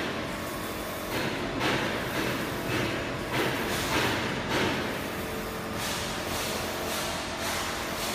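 UV flatbed printer running a print job on ceramic tile, its print-head carriage shuttling back and forth on its rail. The noise swells with the passes, about every half second to a second at first, then evens out in the second half.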